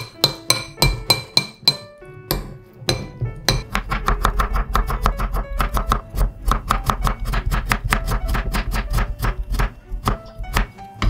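Knife slicing a carrot into rounds on a wooden cutting board: a quick, even run of knocks, about four a second, over background music. In the first two seconds, a metal spoon clinks against a ceramic bowl while mixing pork.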